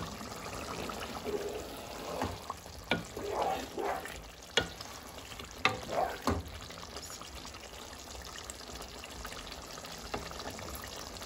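A wooden spoon stirring a simmering keema and potato curry in a pot, knocking and scraping against the pot several times in the first half. A steady low hiss of the curry cooking runs underneath.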